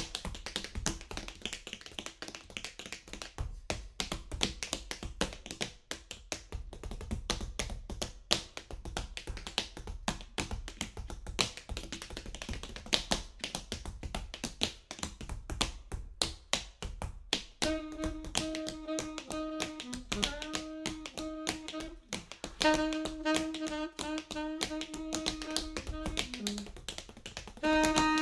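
Tap dance: a fast, dense run of tap-shoe strikes on a wooden floor, carrying the music mostly alone at first. About two-thirds of the way in, an alto saxophone joins with long held notes, broken by short pauses, while the tapping goes on.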